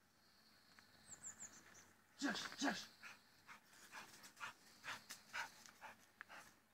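Bulldog-type dog giving two short barks about two seconds in, then panting hard, about two breaths a second.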